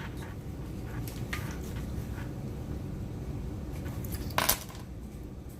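Small hard objects being handled and set down: a few light clicks and one louder clack about four and a half seconds in, over a low rumble of handling noise.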